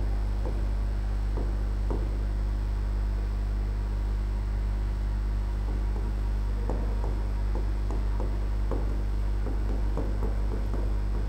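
Steady electrical mains hum, with faint short scratches and taps of writing on a greenboard at intervals.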